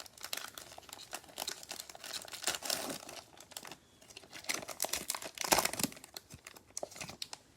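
Cellophane wrapper of a trading-card fat pack crinkling and tearing as it is opened: a run of irregular crackles, loudest about five and a half seconds in.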